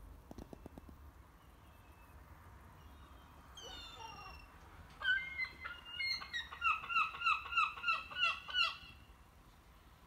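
Seagull calling: a few calls about three and a half seconds in, then a loud run of quick repeated squawks, about three a second, that stops shortly before the end.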